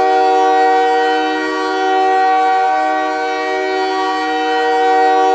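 The Bell Centre's hockey goal horn sounding one long, loud, steady blast of several tones at once, like a chord.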